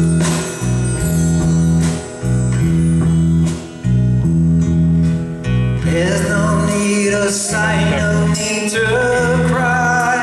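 Live band playing a mid-tempo soft-rock song, with acoustic guitars, electric bass, keyboard and drums; a male lead voice starts singing about six seconds in.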